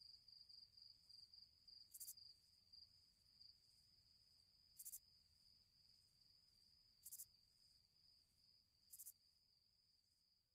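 Near silence with faint night insects: a steady high cricket trill and a short, higher chirp about every two seconds.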